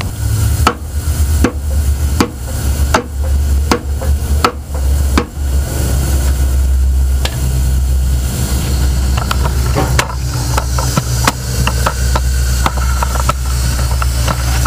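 Lead hammer striking a chrome knock-off spinner on a wire wheel to drive it tight, about one blow every three-quarters of a second for the first five seconds, then a quicker, irregular run of knocks near the end, over a steady low hum.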